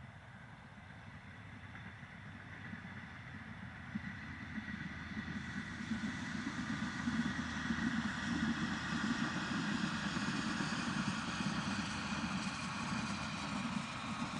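V/Line Sprinter diesel railcar approaching, growing louder over about eight seconds and then running steadily close by, with a low drone and a high whining note.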